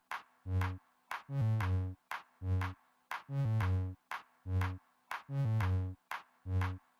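Electronic background music with a drum-machine beat and synth bass notes, about two beats a second.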